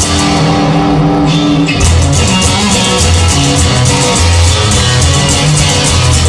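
Loud rock music led by guitars, with drums. The drums and cymbals drop out for about the first second and a half, then come back in.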